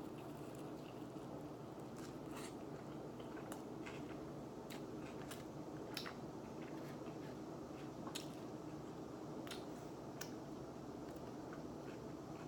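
A person chewing food, with scattered small mouth clicks and smacks over a steady low hum.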